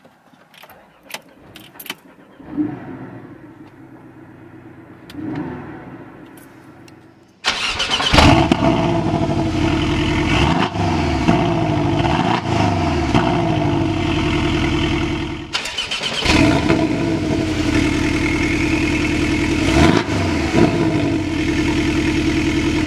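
Base Porsche 718 Cayman's 2.0-litre turbocharged flat-four, on its standard exhaust without the Sports exhaust, starting up about seven and a half seconds in with a loud flare, then idling with a few small rises and falls in revs. About fifteen seconds in it stops briefly and a second startup follows, settling again to an idle.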